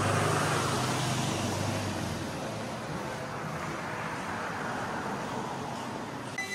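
Street traffic noise: a passing vehicle's low engine hum fades away over the first two seconds, leaving a steady wash of road noise that slowly quietens.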